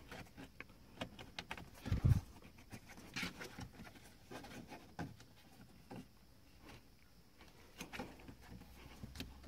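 Plastic dashboard trim being handled and pressed back into place: scattered light clicks and knocks, with a louder thump about two seconds in.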